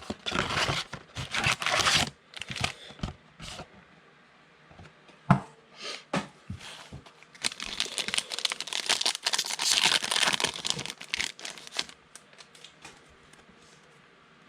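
Plastic wrappers of trading-card packs crinkling and tearing as the packs are opened, in two long stretches with a few sharp clicks between.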